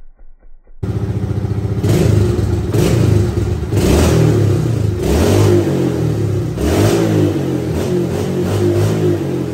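Suzuki DR-Z110 pit bike's small four-stroke single-cylinder engine running close by, revved hard with repeated throttle blips, its pitch climbing and dropping back about five times. It starts sharply about a second in.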